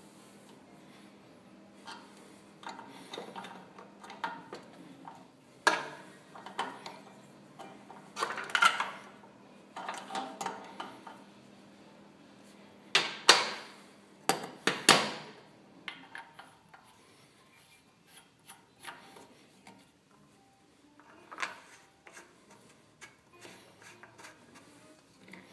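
Adjustable wrench and hands working the brass service valves of a refrigeration compressor: irregular metallic clinks, clicks and scraping rubs, loudest a little past the middle.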